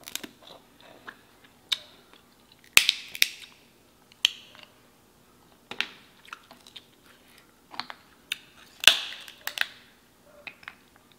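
Close-miked eating of a seafood boil by hand: chewing and wet mouth smacks, mixed with the clicks of picking meat from king crab legs. An irregular string of sharp clicks and smacks, with louder bursts about three seconds in and near nine seconds.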